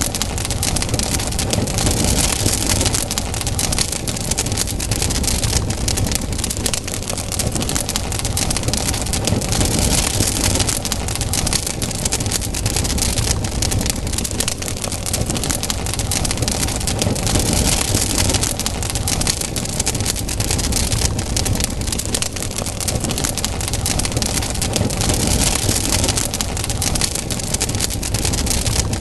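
Wood fire crackling, with dense small pops over a steady hiss that swells and fades every several seconds.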